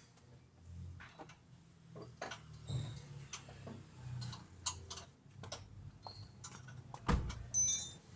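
Scattered metallic clicks and taps of hand tools on car parts during underchassis repair work, over a low steady hum. About seven seconds in comes a heavier knock, followed by a brief ringing metal clink.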